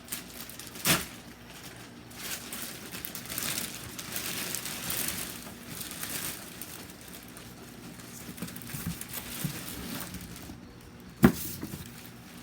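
Packaging rustling and crinkling as the printer is unpacked and handled, with a small knock about a second in and a sharp, loud knock near the end.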